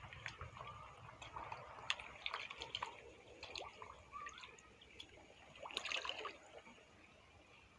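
Koi and goldfish feeding at the pond surface: scattered small slurps, pops and splashes as they gulp floating pellets, busiest about six seconds in.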